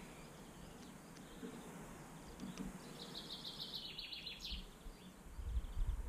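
A garden songbird sings a short, quick run of repeated high notes about three seconds in, with a few faint chirps around it. A low rumble comes in near the end.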